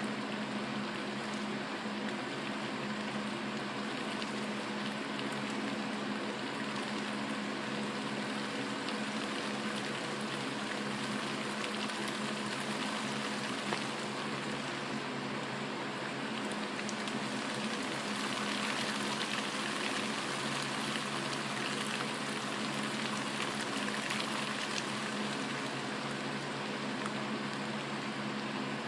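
Steady rain falling during a thunderstorm, heavier for several seconds past the middle, over a constant low hum. No thunder clap stands out.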